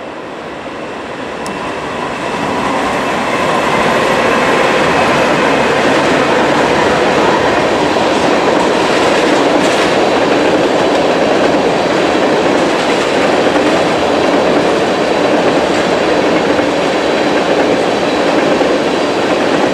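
Norfolk Southern freight train passing close by. Its diesel locomotives grow louder over the first few seconds as they approach, and then a long string of empty tank cars rolls past with steady wheel noise on the rails.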